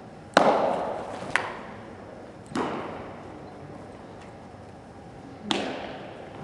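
A baseball smacking into a catcher's mitt, echoing in a large indoor hall, near the start and again about five seconds later, with a sharp click and a weaker smack in between as the ball is thrown and caught.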